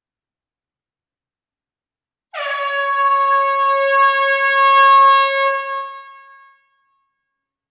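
A single held horn-like note, rich in overtones, that starts abruptly about two seconds in and fades away about four seconds later, with total silence around it.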